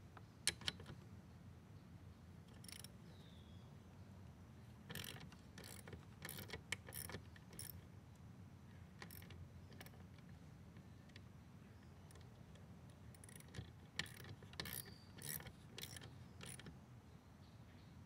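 Faint ratchet wrench clicking in two short runs, about five seconds in and again about fourteen seconds in, as the nut on a lawn mower's drive-cable adjustment bracket is turned, with a few scattered small clicks of the tool on the handle.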